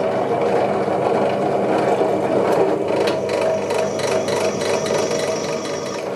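Cheap bench drill press running steadily as its bit is fed down hard into a thin-walled steel square tube. From about halfway a rapid scraping chatter and a high thin whine join the motor hum as the bit cuts into the metal.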